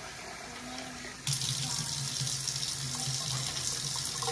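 Kitchen faucet running into a sink; about a second in the flow suddenly gets louder and then runs on steadily with a strong hiss.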